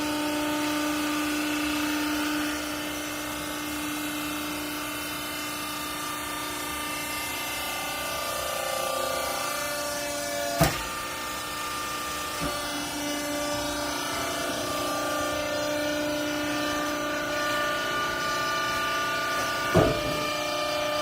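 Hydraulic cloth baler's motor and pump running with a steady whine whose pitch shifts now and then as the load changes, with a sharp knock midway and another near the end.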